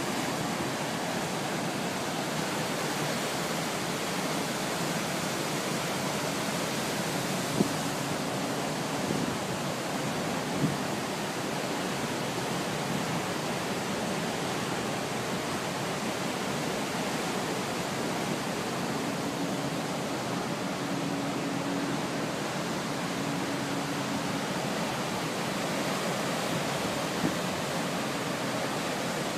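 A cruise ship's wake rushing and churning steadily behind the stern, stirred up by the propellers. From about two-thirds of the way in, a faint hum comes and goes.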